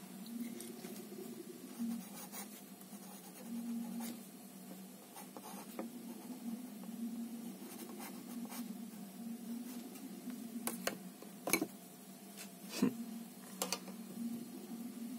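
Light scratching of a fine tip on watercolour paper as a signature is written, with a few sharper clicks late on and a steady low hum underneath.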